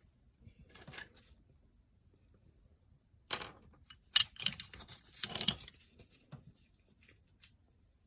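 Metal hand tools clinking and rattling: a ratchet and hex-bit sockets being handled, with a quick cluster of sharp clicks a few seconds in.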